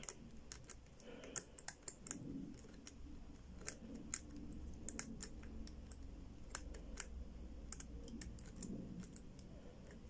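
Faint, irregular clicks of a Zhege four-wheel combination padlock's number wheel being turned notch by notch with tension held on the shackle, as the wheel is felt for its loosest position to decode the lost combination.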